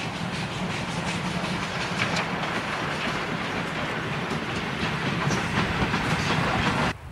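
Train of double-deck coaches behind a steam locomotive rolling past close by, wheels clattering over rail joints above a steady rumble. The sound cuts off abruptly near the end.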